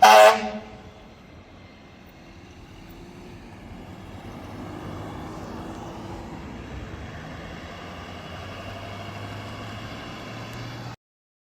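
A short, loud air horn blast from a fire truck, followed by the apparatus's engine running, growing louder over the next few seconds and then holding steady. The sound cuts off abruptly near the end.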